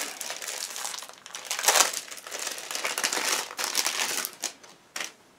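Clear plastic packaging bag crinkling and rustling as it is opened by hand, in irregular bursts, loudest a little under two seconds in, with a short sharp crackle near the end.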